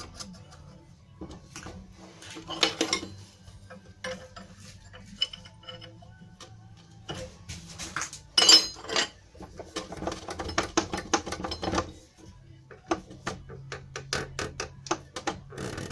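Metal clinks and knocks as a diesel injector is fitted to a hand-lever injector test stand and pumped, with a short, loud hissing burst about eight and a half seconds in.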